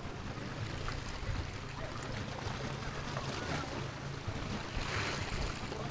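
Small waves lapping and washing against shoreline rocks over a steady low rumble, with a brighter splash of water about five seconds in.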